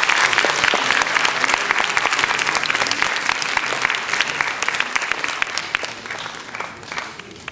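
Audience applauding, a dense patter of many hands clapping that thins out and dies away over the last couple of seconds.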